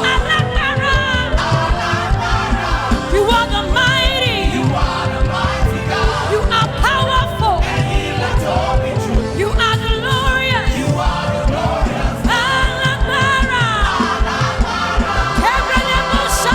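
Live gospel praise music with a steady driving beat, keyboard and voices singing or ad-libbing over it.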